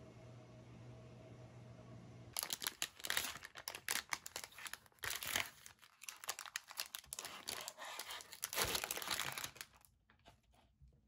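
Foil-lined plastic ice cream bar wrapper crinkling and rustling as it is handled and torn open. The rustling starts a couple of seconds in and stops shortly before the end.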